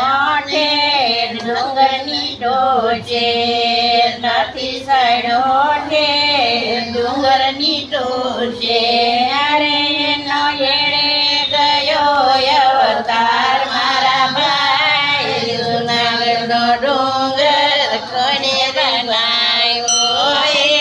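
Elderly women singing a traditional Gujarati devotional folk song (satsang geet) in a flowing melody that continues without a break.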